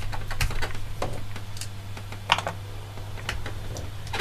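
Irregular light clicks and taps of small plastic and metal parts being handled as a 2.5-inch hard drive enclosure is taken apart, over a steady low hum.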